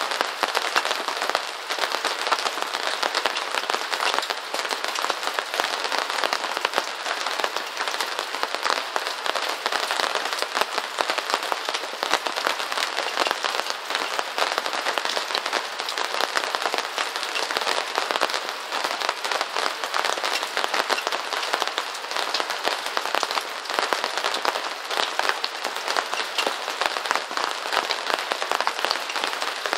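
Steady rain pattering: a dense, even mass of tiny drop ticks that keeps up without a break.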